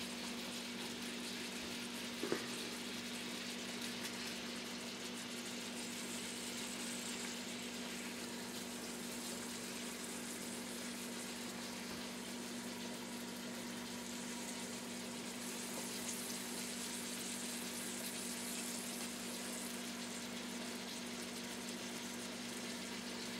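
Grouse breasts frying in butter in frying pans on a gas stove, a steady sizzle, over a steady low hum. A brief knock about two seconds in.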